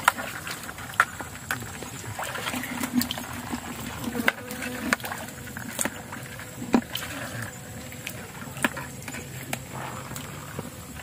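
Footsteps wading through wet mangrove mud, with scattered sharp clicks and snaps.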